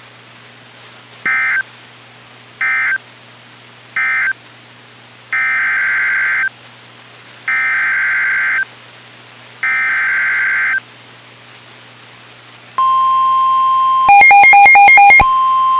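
NOAA Weather Radio Emergency Alert System data bursts, harsh digital screeches: three short end-of-message bursts, then three longer header bursts about two seconds apart. About 13 s in, the steady 1050 Hz weather radio warning alarm tone starts. A louder buzzing multi-pitched burst sounds over it for about a second.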